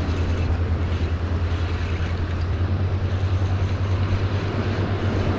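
Wind buffeting the microphone in a steady, fluttering low rumble, over the hiss of surf washing against jetty rocks.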